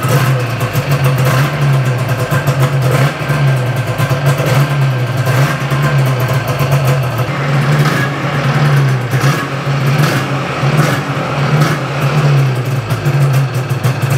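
Yamaha Phazer II snowmobile's two-stroke engine running on its first heat cycle after a rebuild, its speed wavering up and down. It sounds pretty good.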